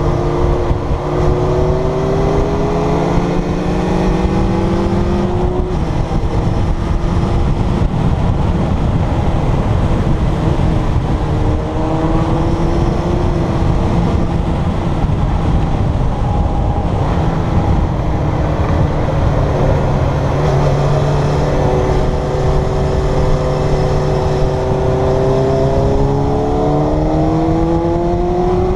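Kawasaki Zephyr's air-cooled inline-four engine under way, its pitch rising as it accelerates out of bends several times, over heavy wind noise on the microphone.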